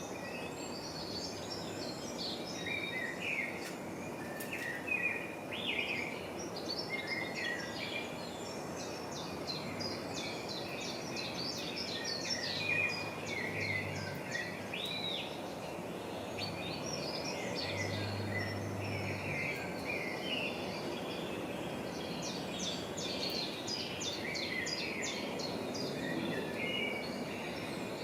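Small birds chirping and trilling almost continuously, many short high calls and quick rattling trills, over a steady background rush of noise.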